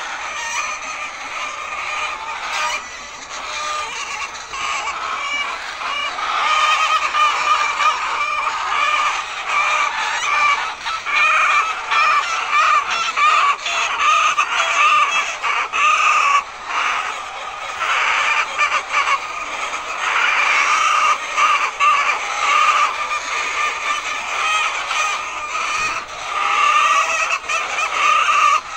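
A large flock of laying hens clucking and calling, many calls overlapping without a break.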